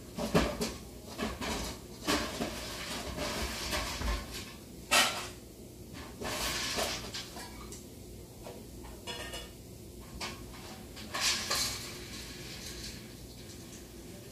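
Scattered clinks and clatters of hard objects being handled, with a few louder knocks and brief rustling, the loudest about five seconds in and again near the end.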